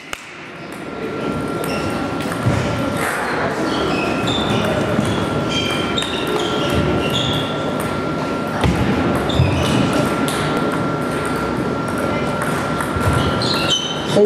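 Table tennis balls clicking off tables and bats from several matches in play around a sports hall, mixed with short high-pitched squeaks and a steady faint high tone.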